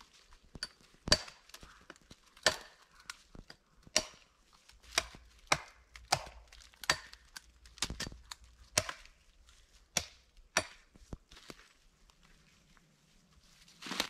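Hatchet chopping into a green wooden pole: a string of sharp, irregular strikes, about one or two a second, as side branches are trimmed off. The strikes stop about eleven seconds in.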